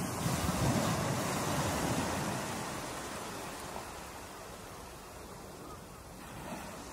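Ocean surf breaking and washing, loudest in the first couple of seconds and then slowly fading.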